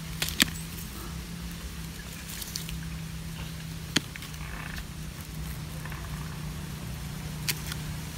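Pruning shears clicking a few times, sharpest just after the start and about four seconds in, over a steady low hum.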